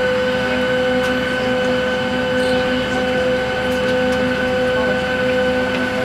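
Steady mechanical hum with several constant whining tones over an even rush, heard inside a Boeing 737 cabin while the wing is being de-iced.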